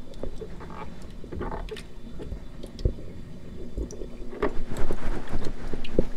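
Short clicks and knocks of hands working an aquarium flow pump onto its plumbing fitting in a sump, over a steady low hum. The knocking grows busier about four seconds in.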